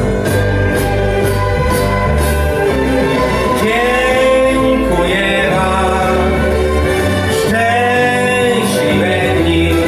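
A man singing a slow song in Polish into a handheld microphone, holding long gliding notes, over an instrumental backing with a steady bass line and a light beat.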